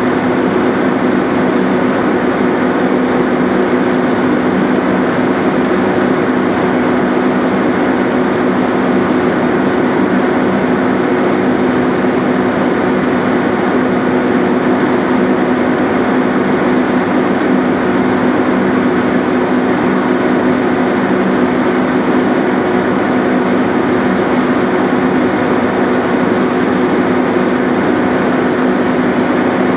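Steady drone of a ship's diesel engine, with a constant low hum over an even rush of noise.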